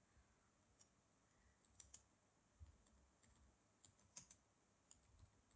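Faint computer keyboard typing: about ten scattered, irregular key clicks.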